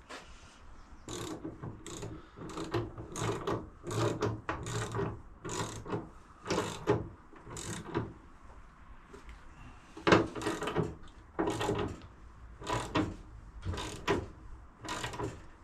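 Mechanical ratchet-like clicking and knocking from workshop tools, about two sharp clicks a second, with a lull of about two seconds midway.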